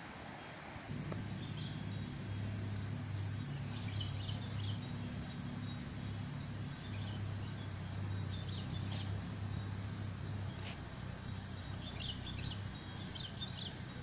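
Rural outdoor ambience: a steady high-pitched insect drone with scattered short bird chirps. A low steady hum comes in about a second in.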